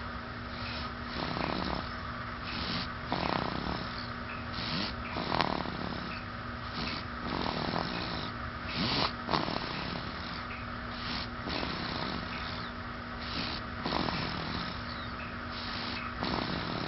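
Snoring: noisy breaths coming irregularly, about once a second, over a steady low hum.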